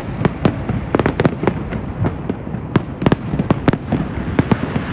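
Fireworks going off in a dense, irregular run of sharp bangs and pops, several a second, over a steady crackling haze.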